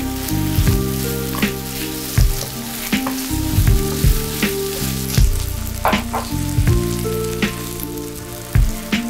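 Chicken, onion and yellow curry paste sizzling in a hot nonstick pan while a wooden spatula stirs them, its strokes scraping and knocking against the pan many times. Near the end coconut milk is poured into the pan.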